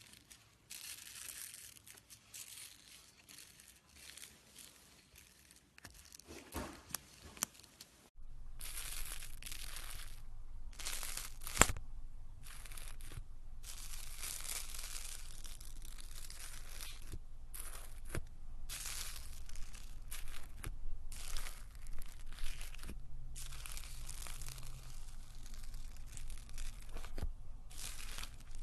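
Slime being squeezed, stretched and poked by hand: a run of short noisy bursts with a few sharp pops. About eight seconds in the clip changes and a low steady hum sits underneath.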